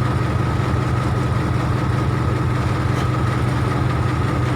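Case 580K backhoe loader's diesel engine idling steadily, a constant low hum with a thin steady whine above it.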